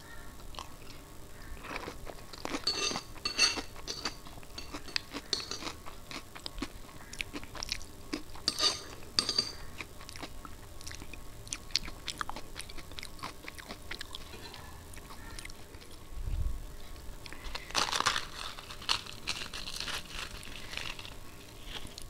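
Close-miked chewing and crunching of dahi puri, crisp puri shells filled with yogurt. The crunching comes in three bouts of sharp crackles, with softer wet chewing between them.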